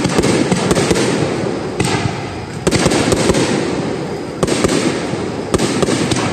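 Aerial fireworks shells bursting one after another, sharp bangs over a dense crackle, with a few heavier booms in the second half.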